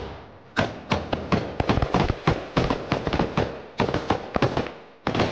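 Rapid, irregular small-arms gunfire: a string of sharp rifle shots, several a second, each with a short echoing tail.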